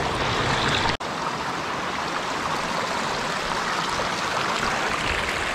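Shallow mountain stream running over rocks, a steady rush of water that cuts out for an instant about a second in.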